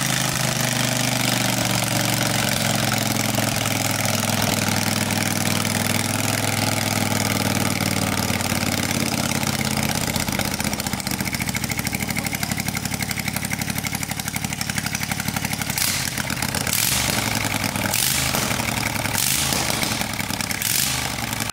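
Honda GX670 670 cc V-twin petrol engine running steadily at idle on the bench, with a loud, hissy, jet-like edge to its sound. About halfway through, its even note turns rougher and more pulsing, with a few short surges near the end.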